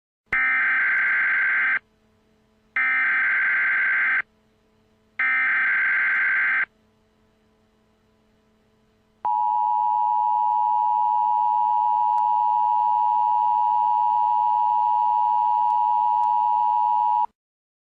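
Emergency Alert System opening sequence: three short screeching bursts of SAME header data, about a second and a half each with a second's gap between them. After a pause comes the steady two-tone EAS attention signal, held for about eight seconds, announcing a civil danger warning.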